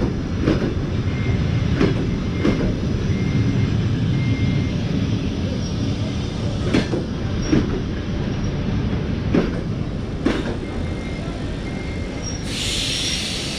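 Passenger coaches rolling slowly into a station: a steady low rumble, with wheels clacking over rail joints at uneven intervals. Faint brief squeals come from the wheels, and a sudden hiss starts near the end.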